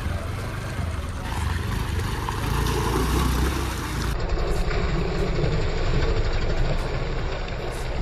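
Honda Activa 125 scooter's single-cylinder four-stroke engine running as the scooter is ridden off-road over gravel and mud, heard as a steady low rumble.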